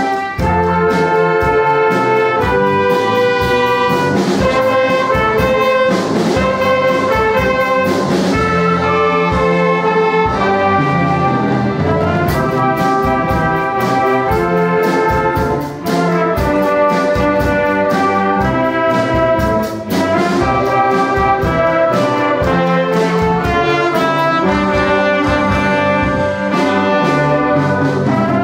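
Student orchestra playing a ragtime arrangement, with many instruments sounding notes together.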